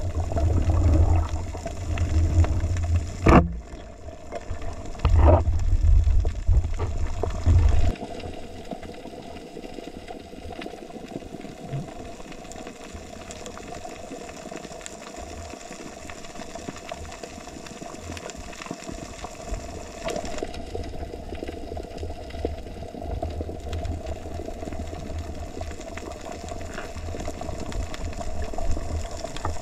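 Underwater sound picked up by a diver's camera: muffled water noise with a steady hum throughout. Heavy low rumbling surges fill the first eight seconds, with a sharp knock about three seconds in, then it settles to a quieter wash.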